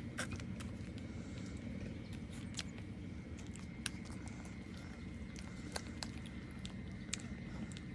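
Newborn puppies suckling at their mother: irregular small wet clicks and smacks, a few a second, over a steady low rumble.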